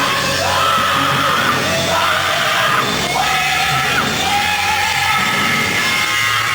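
Hard rock song: a male singer belts and wails sliding, high lines, holding one note about four seconds in, over a loud rock band.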